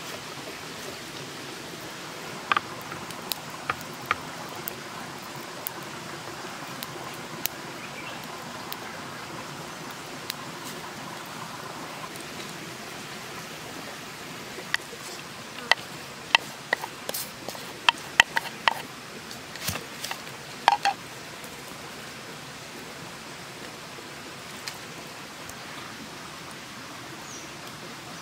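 A steady, even hiss throughout, with scattered sharp clicks and taps over it. The taps come thickest in a quick run about halfway through.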